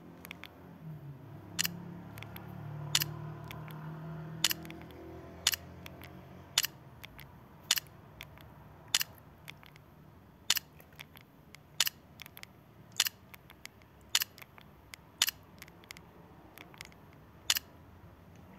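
Sharp single clicks repeating about once every second or so, with a faint low hum under the first few seconds.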